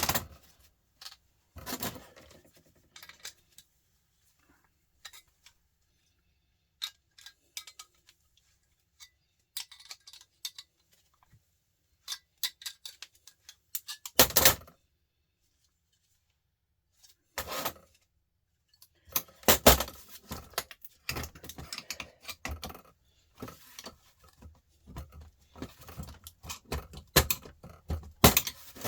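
Scattered clicks, knocks and clinks of small metal and plastic parts from a fluorescent light fitting being handled and taken apart, with quiet gaps between. The clattering becomes busier in the last third.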